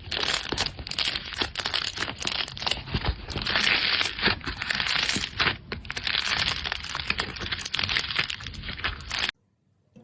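Slime being squeezed and pressed by hand, with dense crackling and crunching that cuts off abruptly near the end.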